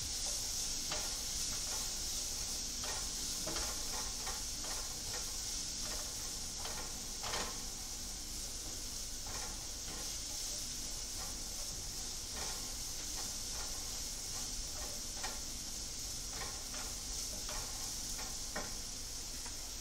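Food sizzling steadily in hot oil in a pot, with scattered light clicks and taps of a utensil stirring.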